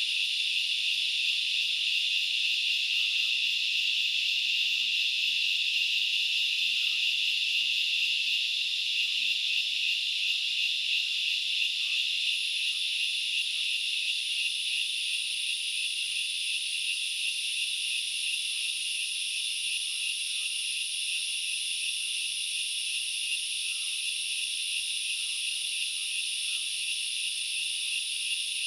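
Steady chorus of forest insects, a dense shrill buzzing in two layers, one high and one very high; the very high layer grows louder about halfway through.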